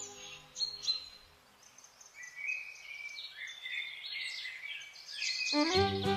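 Songbirds chirping and singing in a string of short, high calls. Background music comes in loudly near the end.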